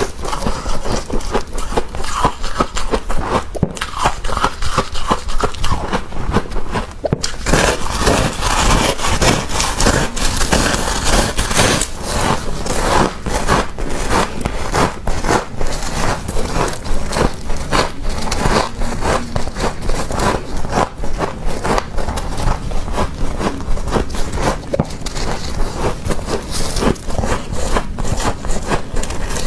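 Thick freezer frost being scraped and crunched, a steady run of quick crackling scrapes.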